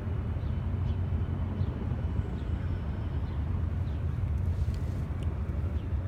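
Helicopter flying overhead, heard as a steady low rumble.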